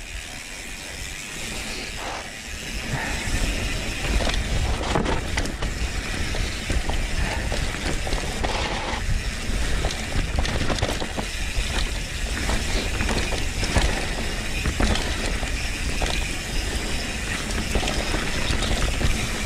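Mountain bike ridden fast down a dirt trail: tyres rolling over dirt and rocks, with many rattles and knocks from the bike over a low rumble, growing louder a few seconds in.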